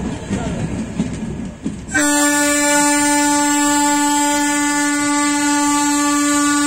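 A passenger train running slowly, with rumble and wheel clatter. About two seconds in, a locomotive horn starts one long, steady blast that is still sounding at the end.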